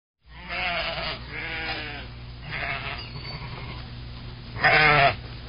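A sheep bleating four times in quavering calls, the last one the loudest, over a steady low hum.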